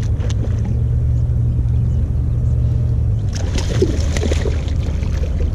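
A hooked bass splashing and thrashing at the water's surface beside the boat, starting about three seconds in and lasting about a second, over a steady low rumble.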